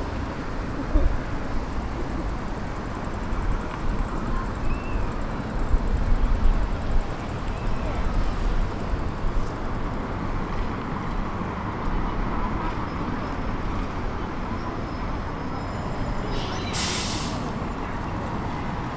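Busy city street ambience: passers-by talking and road traffic running without a break. A sharp hiss lasting about a second comes near the end.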